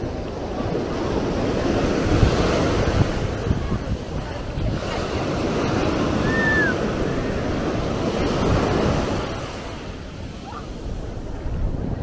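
Sea waves breaking and washing up on the beach, swelling twice and easing off near the end, with wind rumbling on the microphone. A short high chirp sounds about six seconds in.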